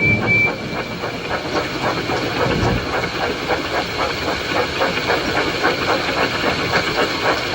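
Steam locomotive puffing steadily along with an even chuff rhythm, over a constant hiss of heavy rain.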